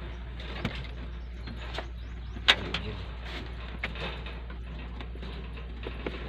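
Scattered clicks and knocks of plastic dashboard trim and wiring being handled and pried, with one sharp click about two and a half seconds in. A steady low hum runs underneath.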